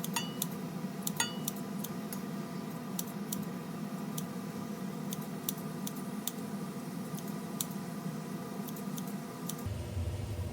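Kitchen sounds during cooking: a steady low hum with light, irregular clicks and taps of utensils on dishes. The hum cuts off abruptly near the end.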